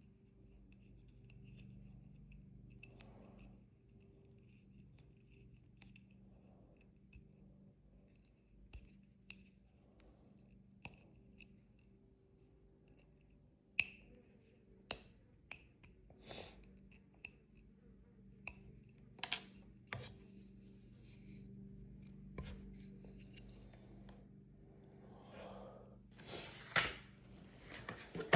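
Small hand-tool work: scattered sharp clicks and taps from about halfway through, with a short stretch of scraping near the end, over a faint steady hum.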